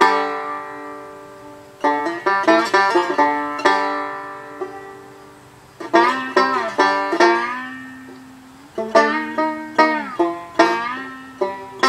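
Resonator banjo played blues with a D battery used as a slide: three phrases of quickly picked notes, each left to ring and fade, with notes sliding down in pitch in the later phrases.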